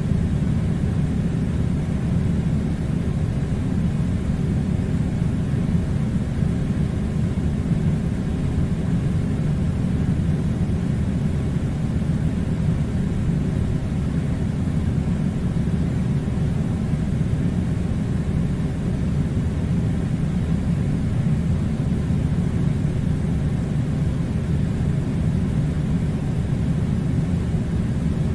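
Air conditioner running with a steady low rumbling hum, unchanging throughout.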